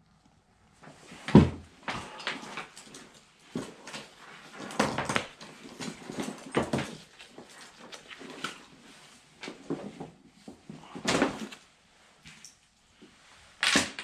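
Handling noise of a fishing vest and nylon backpack: fabric rustling and scraping with several louder knocks and thumps, the strongest about a second in and again near the end.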